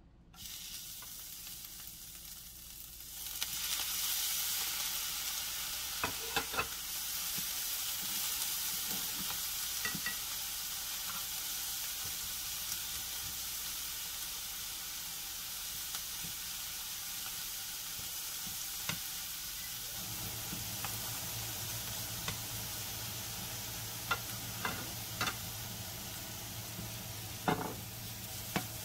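Thinly sliced beef sizzling as it fries in a hot non-stick frying pan, the sizzle rising about three seconds in as the meat goes into the pan and then holding steady. Tongs click sharply against the pan several times as the meat is turned.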